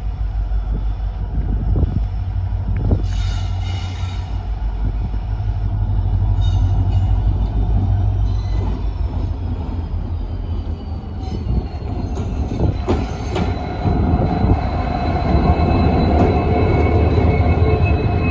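Indian Railways diesel locomotive approaching and passing close by, its engine giving a deep steady throb, then its passenger coaches rolling past with the wheels knocking over rail joints, getting louder near the end. A thin high wheel squeal runs through the second half.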